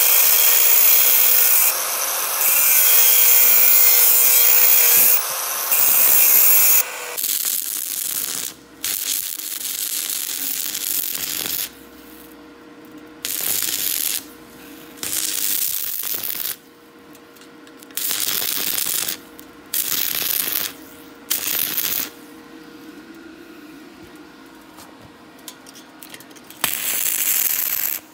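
Angle grinder grinding steel with a steady motor whine for about seven seconds, then a series of short electric arc welding passes, each a second or two of crackling hiss separated by quieter pauses.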